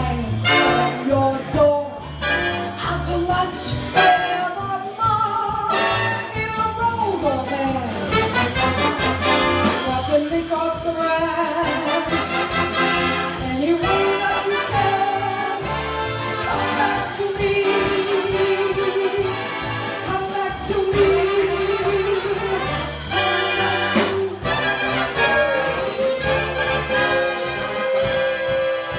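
Orchestral jazz accompaniment with prominent brass, trumpets and trombones, playing an instrumental passage of a show tune. Long notes are held through the second half.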